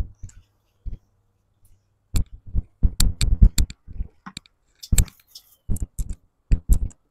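A quick, irregular run of clicks and knocks, sparse for the first two seconds and thickest through the middle and later part.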